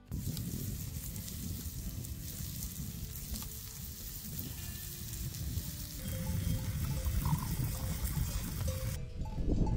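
Capocollo steaks sizzling and crackling on a grill over a wood fire, with wind buffeting the microphone as a low rumble.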